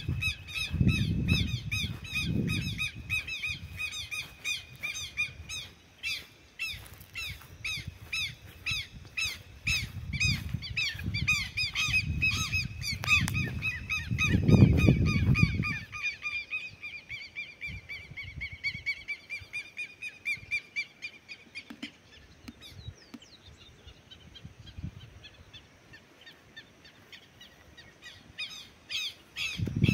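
Birds calling rapidly and continuously, a dense run of quick repeated high calls that dies away about three quarters of the way through. Low rumbling gusts come and go underneath, loudest around the middle.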